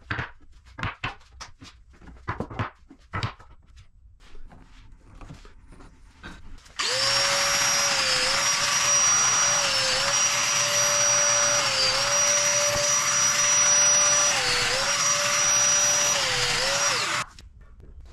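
A few wooden knocks as boards are handled on a workbench. Then a Festool Domino joiner starts up with its dust extractor running. It makes a steady loud whine that sags in pitch about four times as the cutter plunges into the board to cut mortises, then shuts off about a second before the end.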